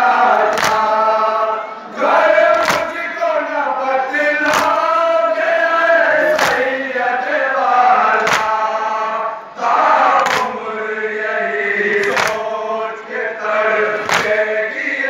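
A crowd of men chanting a nauha, a Shia mourning lament, in unison, with a loud collective chest-beating strike (matam) about every two seconds keeping time.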